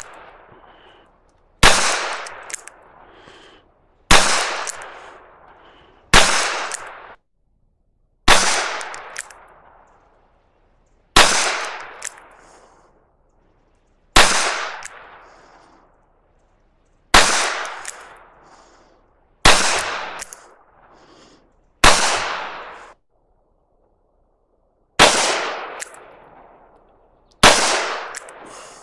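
Ruger GP100 .357 Magnum revolver fired in slow, single aimed shots, about eleven of them spaced two to three seconds apart. Each is a sharp crack that tails off in a brief echo.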